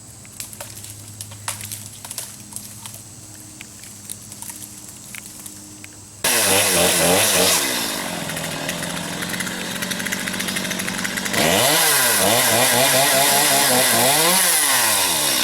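Chainsaw that comes in loud about six seconds in, revving, drops to a lower steady running speed, then revs high again with its pitch repeatedly dipping and recovering, as it does when the chain is loaded in a cut. Before it starts there are only scattered light clicks over a faint low hum.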